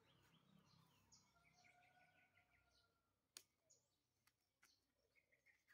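Near silence, with faint birds chirping in the distance and one sharp click a little over three seconds in.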